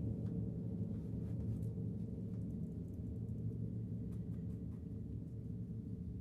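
Low strings of a bare upright piano, stripped of its case, ringing on in a long drone of several low tones that slowly fades, with faint small ticks over it.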